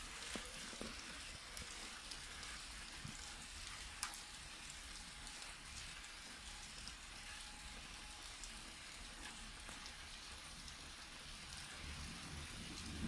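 Light, steady rain hiss during a thunderstorm, with scattered sharp drips close by, one standing out about four seconds in. A low thunder rumble begins to build near the end.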